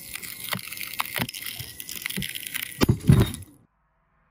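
Steel ClimbTech bolt hanger under a pull test, ticking and cracking under load, then two loud bangs about three seconds in as the hanger fails at about 34 kN. The sound cuts off abruptly right after.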